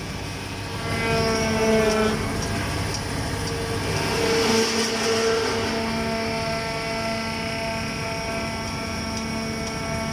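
An engine running, revved up about a second in and easing back down a second later, swelling again briefly near the middle, then running steadily.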